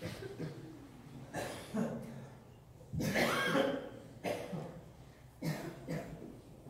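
A few separate coughs and throat-clearings from men in a seated congregation, the loudest about three seconds in.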